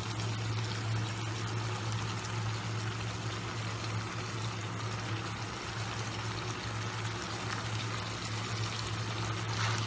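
Beef karahi sizzling steadily in its separated oil over medium heat, an even soft hiss, with a steady low hum underneath.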